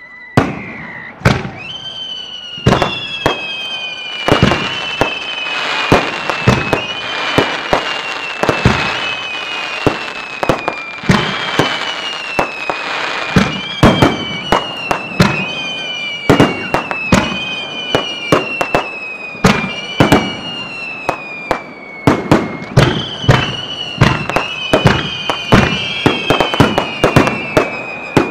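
Aerial fireworks display heard from close to the launch tubes: a rapid, irregular string of sharp bangs from shells launching and bursting, overlapped by a run of whistling fireworks whose shrill whistles each slide down in pitch over a couple of seconds, one after another.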